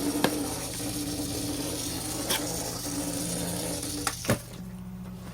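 Small motor of a battery-powered robotic cockroach toy whirring steadily as it crawls, with a few sharp clicks and knocks. After a knock about four seconds in, the whir drops to a lower, quieter pitch.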